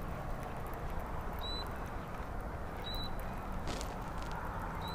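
Steady wind noise on an outdoor microphone, with a short, high chirp repeating about every one and a half seconds and a couple of faint clicks in the second half.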